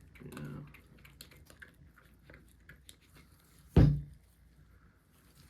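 Small clicks of AR-15 parts being handled in gloved hands, then one sharp, loud knock a little under four seconds in.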